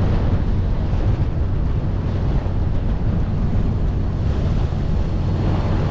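Wind buffeting the microphone over the steady low rumble of a tour boat moving through the water.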